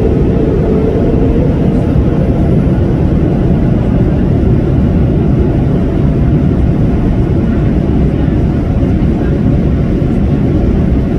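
Steady, loud rumble of an airliner's jet engines and rushing air, heard inside the passenger cabin as the plane climbs after takeoff. A faint steady whine fades out about two seconds in.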